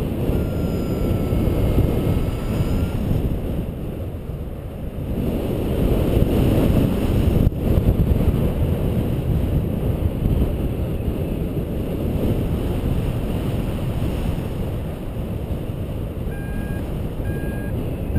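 Airflow rushing over the microphone of a paraglider in flight, surging and easing. A flight variometer sounds a long slightly wavering tone in the first few seconds and two short beeps near the end, with a single sharp click about halfway.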